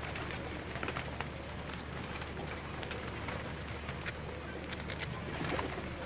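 A large flock of domestic pigeons crowding together at feeding time, cooing, with many short, scattered clicks among them.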